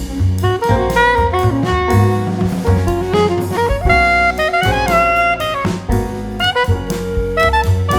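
Background music: an instrumental with a melodic lead line over a drum kit keeping a steady beat.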